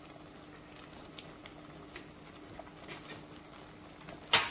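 Thick pumpkin sauce simmering in a pot, with scattered soft bubble pops and one much louder pop near the end, over a faint steady hum.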